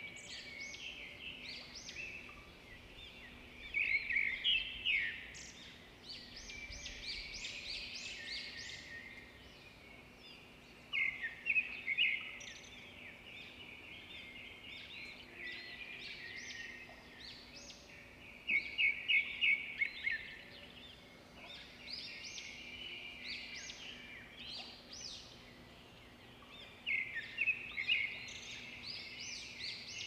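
Small birds chirping and twittering, several at once, swelling into louder bursts of chatter every several seconds, over a faint steady low hum.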